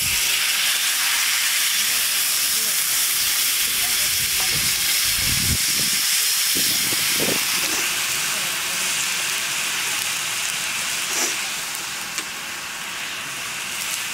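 Liquid poured into a hot metal wok on a wood fire sizzles loudly, starting suddenly, then keeps frying in the pan and eases a little after about ten seconds. A few dull knocks are heard midway.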